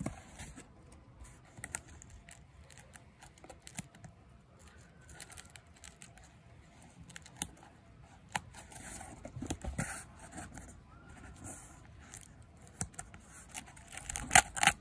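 Scissors cutting through a cardboard book mailer and its packing tape: scattered snips and scrapes with rustling cardboard, louder for a moment near the end.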